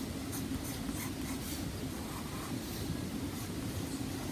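Pencil scratching faintly on sketchbook paper in short, repeated strokes as an oval is traced over, against a steady low hum.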